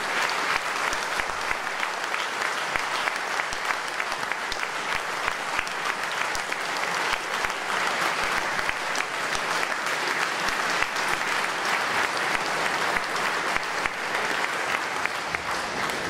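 Large audience applauding, a dense, steady clapping that carries on without a break.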